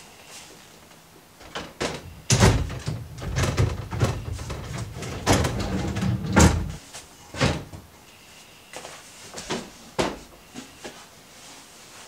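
Wooden drawers being slid into an IKEA Hemnes chest of drawers on their metal runners. The drawer box scrapes and rumbles along the runners with sharp wooden knocks between about two and seven seconds in, followed by a few separate knocks as drawers are pushed home.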